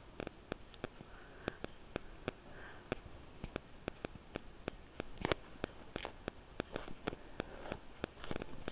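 Faint, scattered light clicks and taps of steel kitchenware as shelled green peas are tipped into a steel mixer-grinder jar and the jar is handled, with two louder knocks about five and six seconds in.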